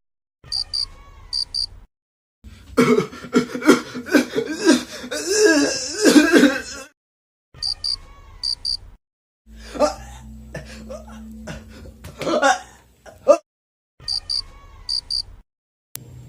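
People coughing and clearing their throats in a string of short clips cut together, acted for comedy as different kinds of cough. Between the clips there are silent gaps and three short interludes with a run of quick, high beeps.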